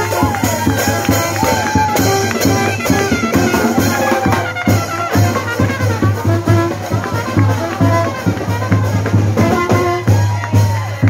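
Marching brass band playing live, trombone among the horns, with held and moving horn notes over a steady bass drum beat.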